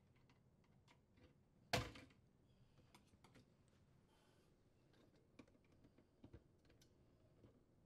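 Mostly quiet handling sounds: one sharp knock about two seconds in, then a few faint light clicks as a small flathead screwdriver pries at the plastic bracket tabs holding a dishwasher's water supply tube assembly.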